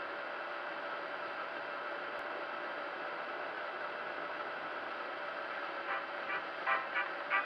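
Steady whirring hum with hiss from an RC crawler truck's electric motor and drivetrain running. About six seconds in, a run of sharp drum hits begins as a music track starts.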